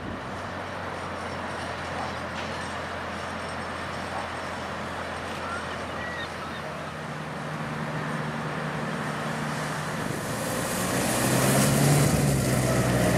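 Engine of a Thwaites lifeboat launch vehicle running as it drives over a shingle beach; the engine note rises about halfway through. It grows louder over the last few seconds as it comes closer, with a hiss joining in.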